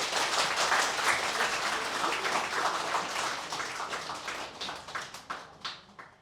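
Small audience applauding after a piano performance, dying away to a few scattered claps near the end.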